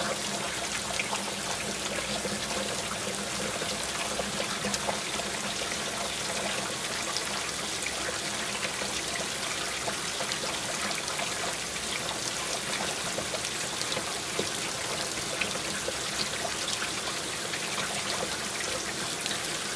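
Heavy rain falling steadily, a dense hiss of rain with many small drop impacts and trickling water.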